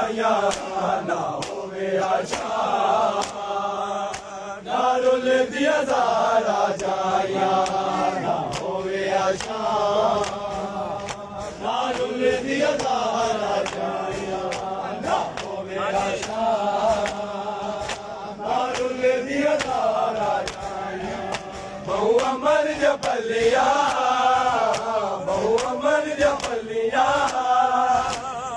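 Men chanting a noha, a Shia lament, with a melodic sung line that rises and falls. Repeated sharp slaps of hands beating on chests (matam) run under the chanting.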